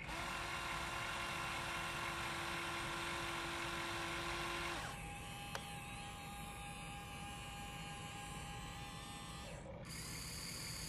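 Huina RC excavator's small electric motors whining steadily as its boom and arm move, the pitch changing abruptly about five seconds in and again near the end, with a single click about halfway through.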